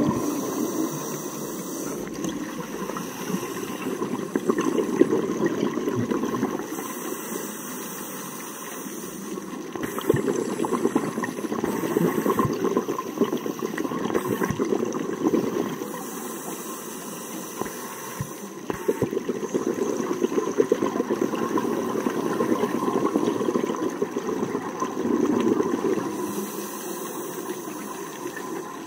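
Scuba breathing heard underwater: the regulator's hiss and bursts of exhaled bubbles, swelling and fading in slow cycles every few seconds.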